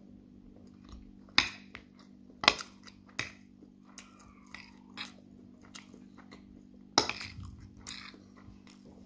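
Metal fork clinking and scraping against a plate of rice several times, with sharp clicks about a second and a half, two and a half, three and seven seconds in, between quieter chewing sounds.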